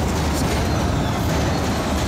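Steady, loud engine rumble from the Megasaurus car-eating robot as it holds a car in its jaws.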